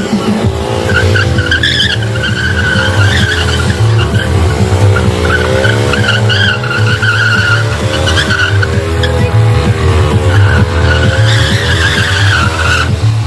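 Motorcycle burnout: the rear tyre squeals against the tarmac while the engine is held at high revs, the squeal wavering in pitch and dipping now and then. It breaks off near the end.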